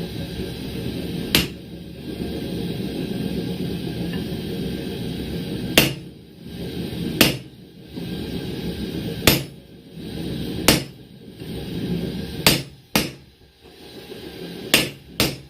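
Hand hammer striking a chisel held on the steel tong blank over an anvil, about nine sharp ringing blows at an uneven pace, two of them in quick succession near the end.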